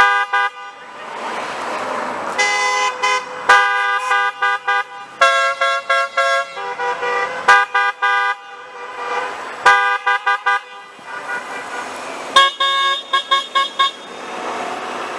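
Car horns honking again and again from passing traffic: several different horns at different pitches, some held for a second or more and some in quick strings of short toots, with a burst of rapid toots near the end. Between the honks, the steady noise of passing cars. The drivers are honking in support of a roadside protest sign.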